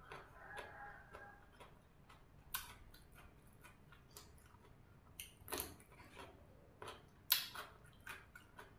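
Quiet clicks, snaps and crunches of raw vegetables being picked off a bamboo tray and bitten and chewed. A few sharper crunches come through, the loudest about seven seconds in.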